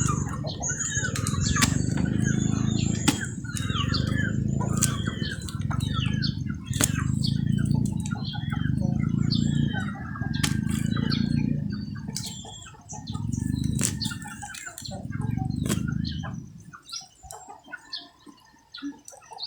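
Small birds chirping busily, over a low rushing sound that swells and fades about every one and a half to two seconds, nine times, and stops near the end.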